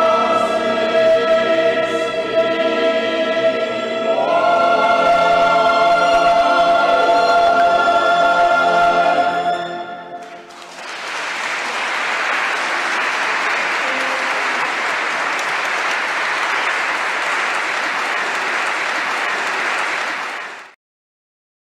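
Classical music with singing voices and instruments holding long closing chords, the pitch stepping up about four seconds in. The music ends about ten seconds in and is followed by audience applause, which cuts off abruptly near the end.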